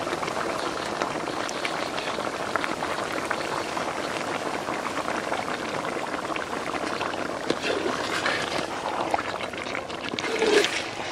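Chicken curry masala bubbling steadily in a metal pot, a dense crackle of small pops, with raw chicken liver just added. Near the end a metal ladle stirs the pot, knocking and scraping against it.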